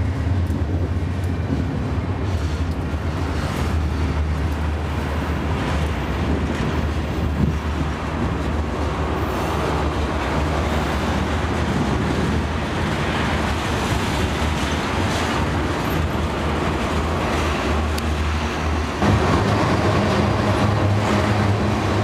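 A long freight train of covered hoppers and tank cars rolling past close by: a steady rumble of steel wheels on the rails, growing a little louder about nineteen seconds in.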